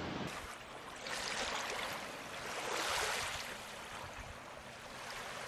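Rushing water noise, swelling about a second in and most strongly around three seconds in, then easing.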